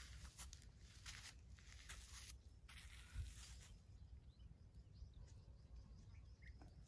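Near silence: faint outdoor ambience with a steady low rumble, a few short soft rustles and one soft thump about three seconds in.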